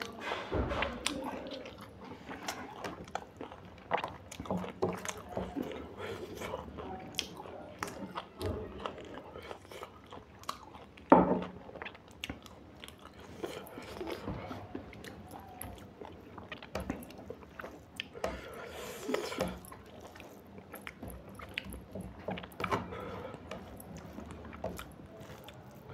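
A person chewing and eating mutton curry close to the microphone: irregular wet chewing, smacking and crunching, with one louder knock about eleven seconds in.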